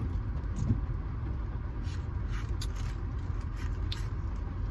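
Steady low rumble inside a car's cabin, with a few faint, brief sips through a drinking straw.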